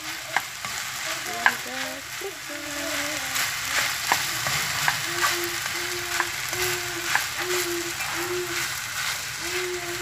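Rice and vegetables sizzling as they are stir-fried in a non-stick frying pan, with a plastic spatula scraping and clicking against the pan. From about halfway, a short low tone repeats about twice a second.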